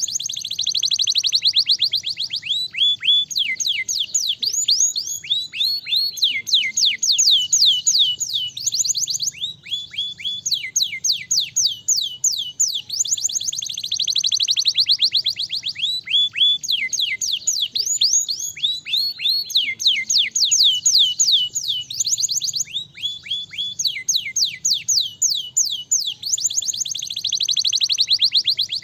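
Young domestic canary singing a continuous song: fast rolling trills alternate with runs of quick downward-sweeping whistled notes, the phrases following one another with hardly a break.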